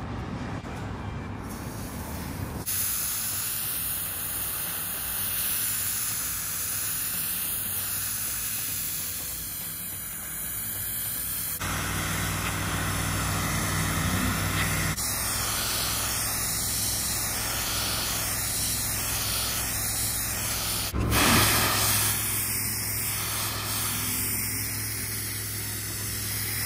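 Pressure-washing wand spraying water onto concrete, a steady high hiss as painted parking lines are cleaned before restriping. The sound changes abruptly a few times where the shots change.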